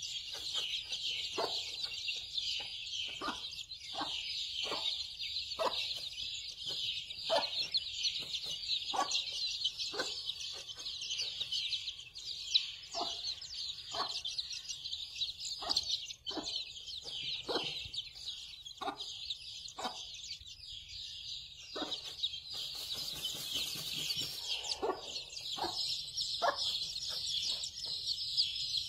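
A brood of chicks peeping continuously, high and dense, while a mother hen clucks low and regularly, roughly once a second.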